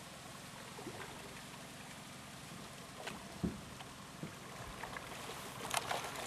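Hooked coho salmon splashing at the surface as it is netted, a burst of splashes near the end. Under it, the steady wash of moving river water, with a couple of dull knocks in the middle.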